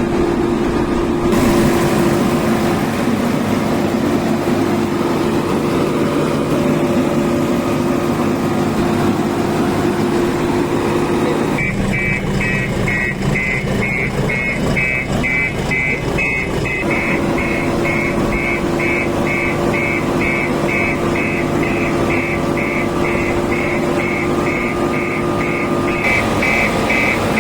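The diesel engine of a JCB 3DX backhoe loader running steadily. About halfway through, an electronic warning beeper starts sounding in quick, even beeps, about two to three a second, and keeps going to the end.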